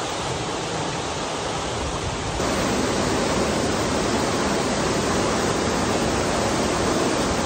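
Steady rush of water pouring out of a lake dam's spillway gates into the river below; it gets louder about two and a half seconds in.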